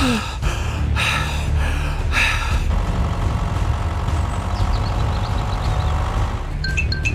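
Cartoon sobbing sounds, then a steady engine sound effect for a toy tractor and toy truck driving. Near the end a railway crossing signal starts beeping, about three beeps a second.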